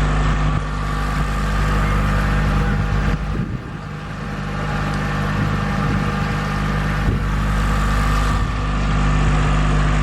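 Small rental motorboat's engine running steadily under way, with a brief dip in loudness about three and a half seconds in.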